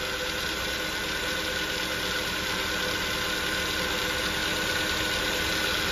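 Nissan GA13 carbureted 1.3-litre four-cylinder engine idling steadily after the no-start repair, warming up.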